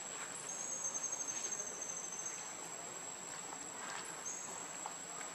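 Insect chorus: a steady high-pitched whine with a second, pulsing trill that comes in twice, about half a second in and again near the end.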